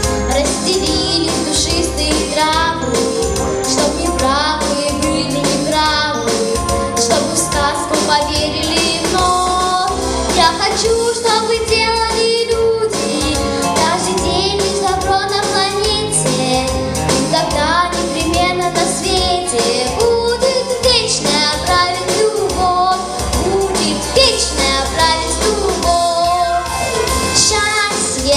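A young girl singing a song with vibrato over a recorded backing track with a steady beat.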